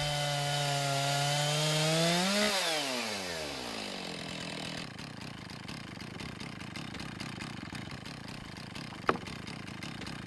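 Chainsaw engine running steadily on a chainsaw mill. Its revs climb briefly about two seconds in, then fall away as the engine winds down and stops. After that only a faint hiss remains, with a single sharp click near the end.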